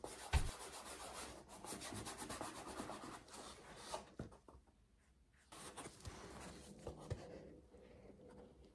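Paintbrush bristles lightly dry-brushing highlight paint over the textured EVA foam of a top hat, a faint scratchy rubbing that pauses for about a second midway.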